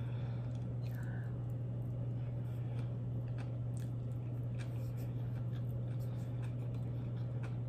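Close-miked mouth sounds of eating a sushi roll: soft chewing with faint wet clicks, over a steady low hum.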